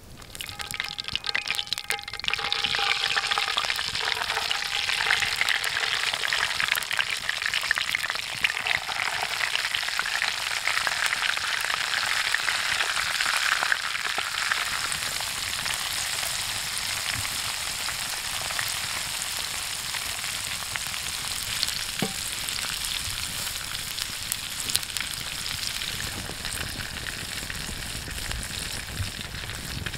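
Flour-coated chicken pieces deep-frying in hot oil in a cast-iron pot: a dense, steady sizzle full of fine crackling. It comes up in the first couple of seconds and is loudest for about the first fourteen seconds, then eases slightly.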